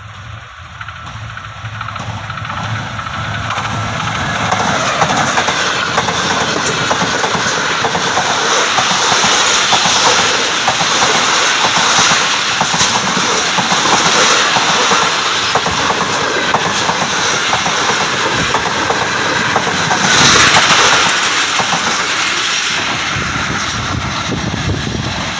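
A train approaching and passing close by, its wheels running over the rails with a steady loud rush and many quick knocks. The noise builds over the first few seconds as the train arrives, stays high as the carriages go by, is loudest about twenty seconds in, and eases a little near the end.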